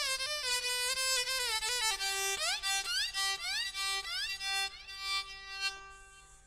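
Sacha guitarra played with a small horsehair bow, sounding like a violin: a short melody of stepping notes, then several rising slides over a held lower note, dying away near the end.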